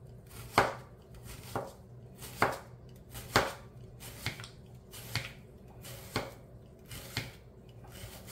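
Chef's knife slicing a red onion on a plastic cutting board: about nine knife-on-board knocks at roughly one a second, a few of them noticeably louder.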